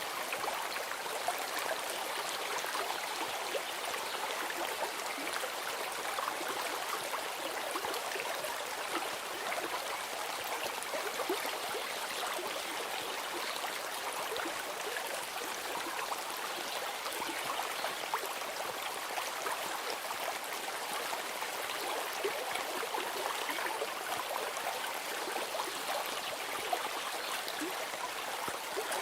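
Steady flowing stream: an even, unbroken rush of running water.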